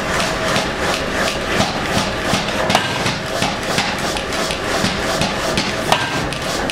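Power hammer striking a red-hot steel piece held in tongs, with even, rapid blows about three a second over a steady machine hum.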